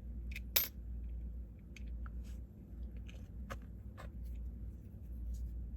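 Scattered light clicks and handling noises from a small power tool being taken apart by hand, a part pressed and twisted out to change its bit. One click about half a second in is sharper than the rest.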